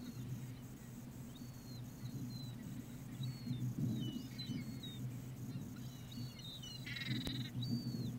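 Gulls calling overhead: a string of short, high, thin cries, with one harsher squawk about seven seconds in, over a steady low hum.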